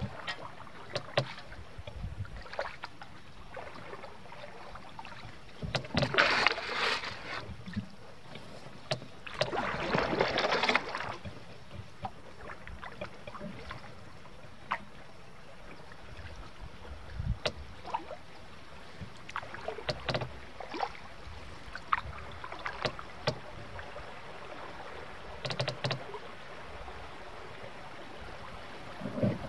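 Wenonah canoe on the move down a creek: water moving along the hull with scattered light knocks, and two louder spells of splashing water about six and ten seconds in.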